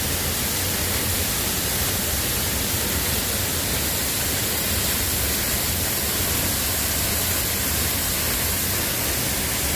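Waterfall plunging down a rock cliff and splashing onto the rocks at its foot: a steady, even rush of falling water.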